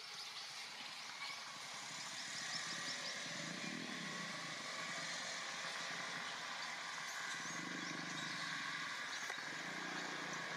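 Steady outdoor ambience: a low hum of distant motor traffic that swells slightly twice, under a continuous hiss with a few faint high chirps.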